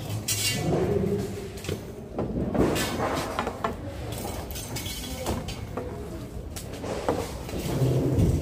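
Foil-faced insulation wall panels being torn down by hand: sheeting rustling and tearing as it is pulled and pried, with irregular knocks and rattles from the panel framing.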